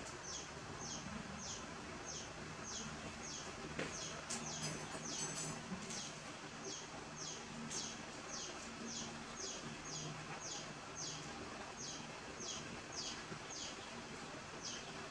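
A bird calling over and over: short, high chirps that slide downward, about two a second, over a steady background hiss.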